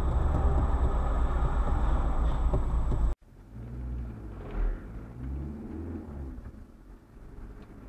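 Dashcam audio from inside a moving car: a loud, steady low rumble of road and engine noise that cuts off abruptly about three seconds in. It is followed by a quieter car engine whose pitch rises and falls.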